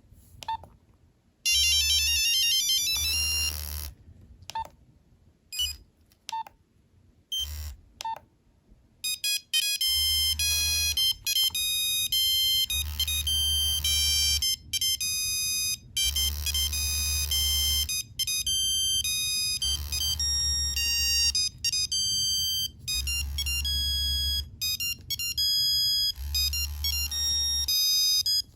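Nokia 3390 playing monophonic ringtones through its buzzer: a brief tone sequence about two seconds in, then a few single short beeps. From about nine seconds in comes a full ringtone melody of bright, beeping notes. A low buzz switches on and off beneath it in pulses of a second or two.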